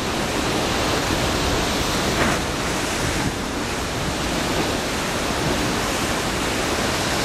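Ocean surf surging into a narrow basalt rock inlet and churning thick sea foam: a steady rushing wash, with a wave surging up a little louder about two seconds in.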